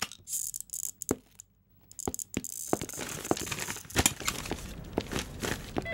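Quiet background music with light percussive clicks, coming in about two seconds in after a brief near-silence.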